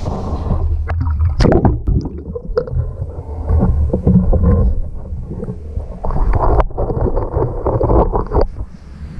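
Clatter and knocks of metal junk on a recovery magnet being handled and pulled from a street drain, over a steady low rumble. There are sharp knocks about a second and a half in and again near the seven-second mark.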